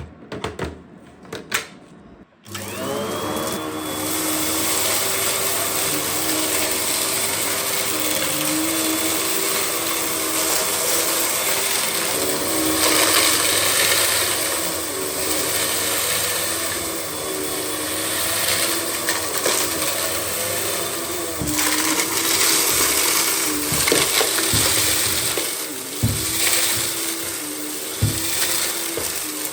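A few clicks, then about two seconds in the Russell Hobbs Athena Pet vacuum cleaner's 400-watt motor switches on; its whine rises briefly and settles. It runs steadily, with a few sharp knocks near the end.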